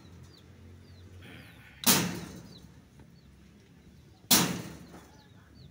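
Two sharp, loud knocks about two and a half seconds apart, each dying away over about half a second, with faint high chirps in between.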